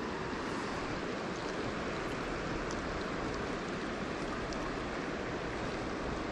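Steady rush of a shallow river running over rocks and riffles.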